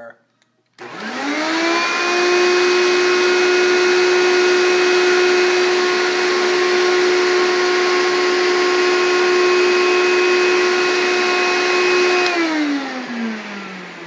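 Hoover vacuum cleaner switched on: the motor spins up to a steady pitch within about a second and runs with a rushing hiss of air, then is switched off near the end and winds down, its pitch falling away.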